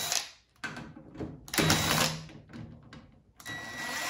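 Ryobi cordless drill/driver running in short bursts as it backs screws out of the microwave's sheet-metal panel, with a steady motor whine in the longer burst near the end.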